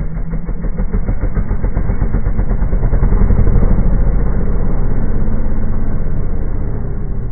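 Trials motorcycle engine pulling the bike up over boulders. It gets louder to a peak about halfway through, then eases off toward the end.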